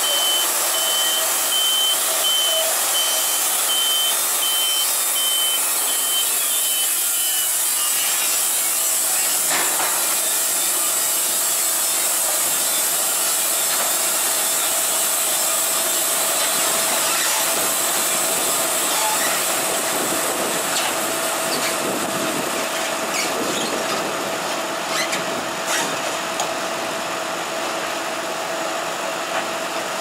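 Wood-Mizer LT70 portable band sawmill running steadily. A repeated high beeping sounds over it for the first seven seconds or so, then stops.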